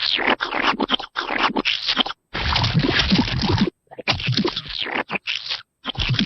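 A string of short scratchy, scraping noise sound effects played one after another with brief silent gaps; the longest, near the middle, lasts over a second.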